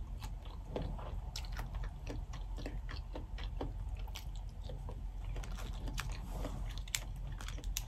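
A person chewing and biting into boiled crawfish, with many small, irregular wet clicks and crunches.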